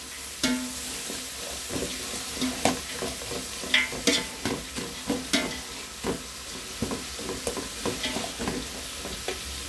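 Sliced onions and green chillies sizzling in hot ghee and oil in a metal pot, stirred with a slotted metal spatula that scrapes against the pot in irregular strokes.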